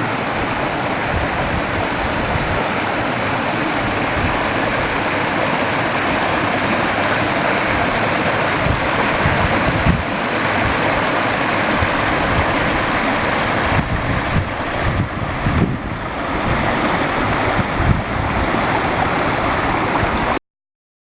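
Sea water washing over shoreline rocks, a steady rushing and splashing with a few low thumps in the second half. It cuts off abruptly near the end.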